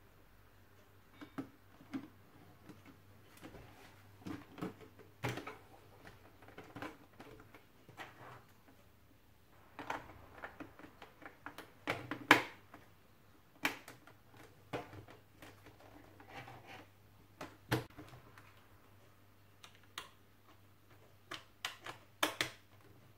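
Irregular plastic clicks and knocks as the clear visor is fitted back onto an LS2 modular motorcycle helmet and pressed into its side pivot mechanism. The sharpest click comes about twelve seconds in.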